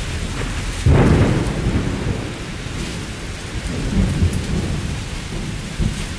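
Steady rain with thunder: a loud rumble about a second in that rolls off over a couple of seconds, then softer low rumbles later on.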